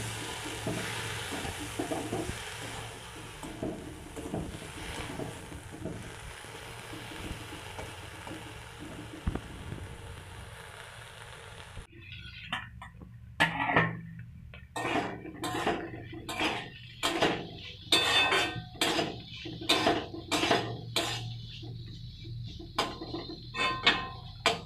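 Bitter berries frying in a metal wok: steady sizzling with light spatula stirring for about the first half, then the sizzle cuts off and a spatula scrapes the wok in repeated strokes, about one a second.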